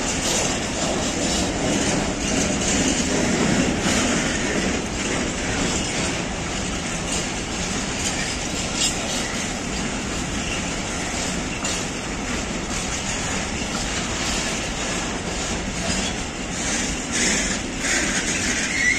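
A freight train of tank wagons rolling past at speed, wheels clattering on the rails in a continuous rumble with scattered clicks. The last wagons go by near the end.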